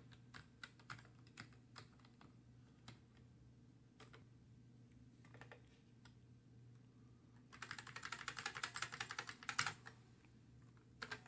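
Keys of a Commodore SX-64 keyboard, freshly fitted with a replacement membrane, being pressed to test them: scattered single key clicks, then a quick run of rapid typing from about seven and a half to nearly ten seconds in, and two more clicks near the end.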